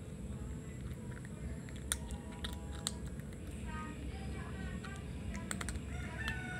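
A hungry tabby kitten chewing and crunching dry kibble, with a few sharp crunches scattered through and several close together near the end.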